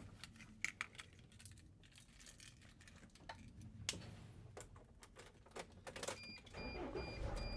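Scattered clicks and rattles, like keys and cab fittings being handled. About six seconds in, a 2006 Mercedes Sprinter van's engine starts quickly and settles into a low idle, while a dashboard warning chime beeps repeatedly.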